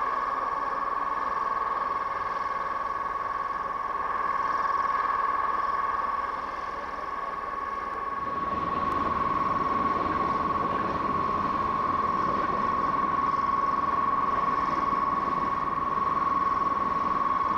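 Class 73 electro-diesel locomotive running while shunting: a steady high-pitched whine over engine noise, with the lower running noise growing louder about eight seconds in.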